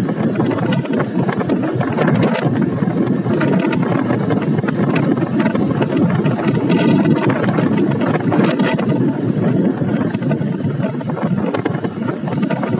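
Motorbike engine running at a steady cruising speed, with wind rushing over the microphone while riding.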